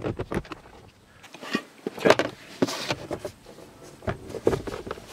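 Plastic car glove box being fitted back onto its hinge notches: irregular plastic knocks, clicks and a short scrape, the louder ones from about two seconds in.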